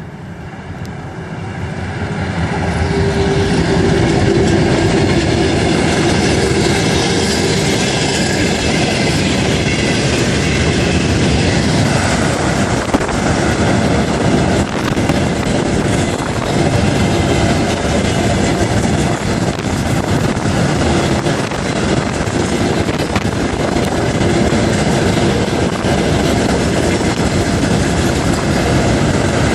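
Train hauled by a 2TE10M diesel locomotive passing close by on a bridge: a steady, loud rumble with the clatter of wheels over rail joints, building over the first few seconds as the train arrives.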